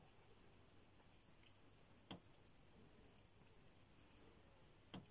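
Near silence broken by a few faint, sharp clicks, the clearest at the start, about two seconds in and near the end. They come from a small metal pick probing for a stone lodged in a fish's mouth.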